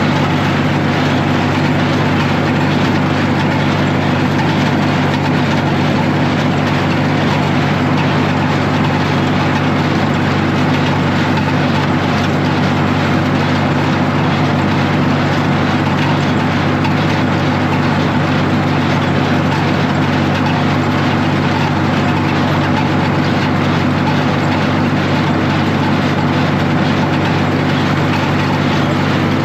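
Tractor engine running at a steady speed.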